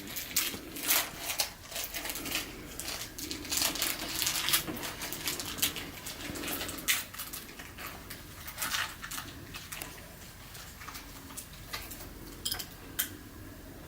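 Irregular light clicks, taps and rustles, denser in the first half, with a faint low muffled sound coming and going.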